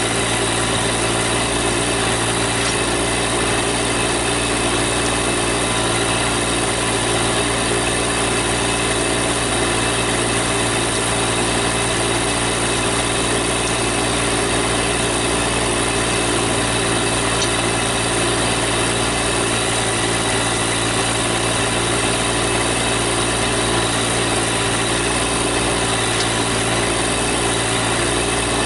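Diesel engine of a Massey Ferguson GC1710 sub-compact tractor-backhoe running at a steady speed, with no revving or change in load.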